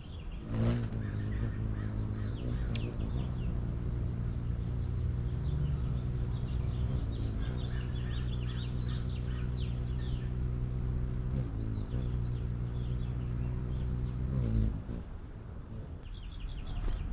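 Hummingbird wings humming steadily as it hovers at the feeder, with small shifts in pitch. The hum starts abruptly about half a second in and stops abruptly near the end, while small birds chirp rapidly in the background.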